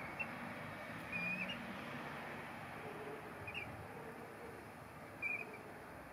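Eurasian oystercatchers giving a few short, soft piping calls, single brief notes spread every second or two, over a steady background hiss.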